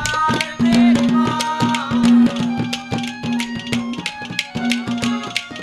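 Live Haryanvi ragni accompaniment playing without vocals: a hand drum beats a quick, steady rhythm under a sustained held note. A gliding melody line sounds over them in the first two seconds.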